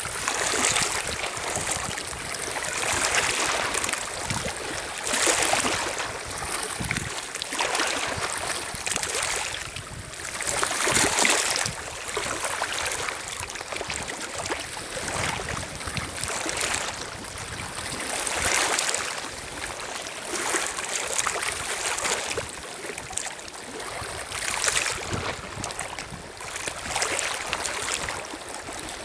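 Small lake waves lapping and washing over a pebble shore, a hissing wash every two to three seconds.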